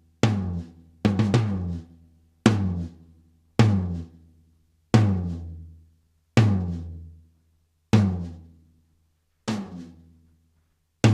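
Rack tom struck about every second and a half, with one quick double hit, each stroke ringing out with a low boom. The drum is going through a noise gate whose threshold is being adjusted, so the ring is cut off sooner on some hits than on others.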